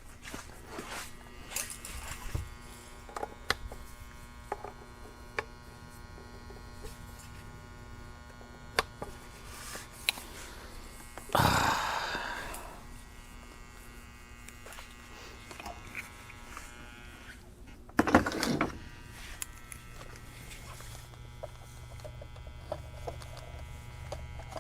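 Steady electrical buzz with scattered clicks and knocks of handling at a workbench, and two louder rustling bursts, about halfway through and again a few seconds later.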